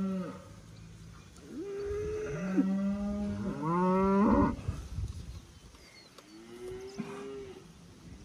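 Beef cattle mooing: one call ends just as the sound begins, then several cows call over one another for a few seconds, and one fainter moo comes near the end.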